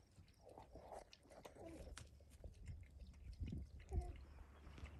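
Alpacas close by making a few short, soft hums, each dipping in pitch, the clearest about four seconds in. Faint clicks and a couple of light low bumps run under them.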